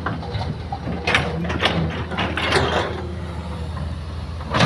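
Hitachi hydraulic excavator running steadily while it loads a dump truck, with a series of clanks and rattles from the bucket and the load about one to two and a half seconds in, and a sharp crack near the end.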